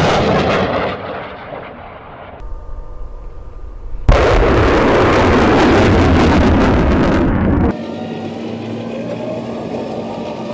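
Rockets launching from a multiple-launch rocket system: a loud rushing roar that fades over the first two seconds, then a second launch roar that starts suddenly about four seconds in and stays loud for about three and a half seconds before cutting off. The last few seconds hold a steadier, quieter rumble with a low hum from the tracked rocket launcher's engine running.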